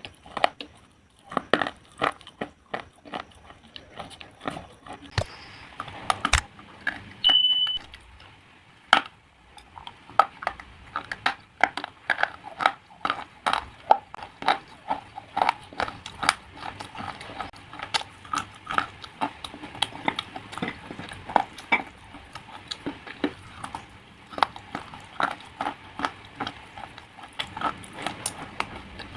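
Pieces of slate being bitten and chewed: a dense, irregular run of sharp crunches and cracks.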